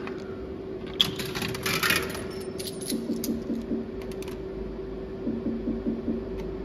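A coin fed into a bar slot machine's coin slot: a sharp click about a second in, then a brief metallic rattle as it drops through the coin mechanism and the machine registers one euro of credit. After that come two runs of short repeated electronic tones from the machine as the reels spin.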